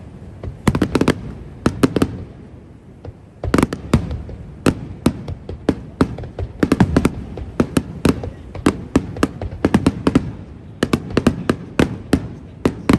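Festival fireworks bursting in quick volleys, with clusters of sharp cracks and bangs and a low rumbling echo between them. A short lull comes about three seconds in, then the bursts come thicker and faster.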